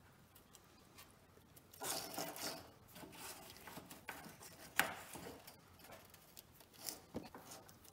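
Faint rubbing and scraping about two seconds in, a sharp tick just under five seconds in and a few smaller taps near the end: handling noise of a soldering iron and wire leads being worked against a metal solder terminal strip.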